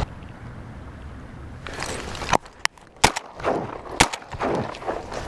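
A handful of sharp clicks and knocks, irregularly spaced over a few seconds, with soft rustling between them: close handling and movement noise.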